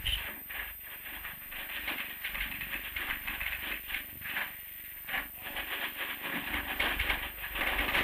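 Typewriters clattering as typists type: rapid, irregular keystroke clicks with a brief lull a little past the middle.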